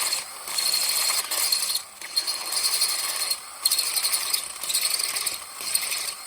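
Drill with a 12.7 mm bit boring out a stripped head-bolt hole in an engine block, running in spurts of about a second and a half with short pauses between.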